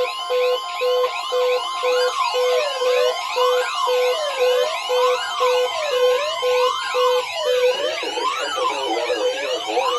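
Layered electronic warning alarm of an EAS weather-radio test. A tone beeps about twice a second under fast repeating high chirps and a steady tone, and rising-and-falling siren wails join about two seconds in. The beeping stops near eight seconds in while the wails continue.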